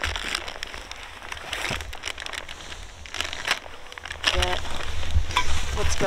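Plastic bag crinkling and rustling as gear is handled and rummaged through by hand, with scattered small clicks and knocks.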